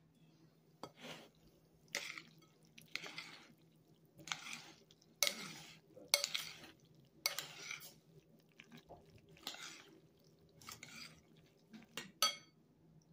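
Metal spoon stirring pasta salad in a glass bowl: a wet scraping swish of pasta about once a second, with clinks of the spoon against the glass, the sharpest and most ringing near the end.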